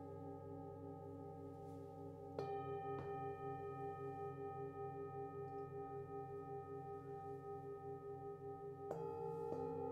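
Struck metal sound-healing instruments ringing in long, clean tones that pulse slowly as they fade, over a steady low string drone from a monochord. Fresh strikes come about two and a half seconds in, again half a second later, and twice near the end.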